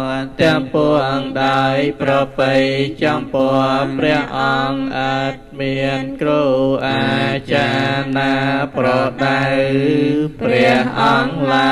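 A Buddhist monk chanting Khmer homage verses into a handheld microphone: a single voice on a near-steady, monotone pitch, syllables held and then broken off in a running rhythm.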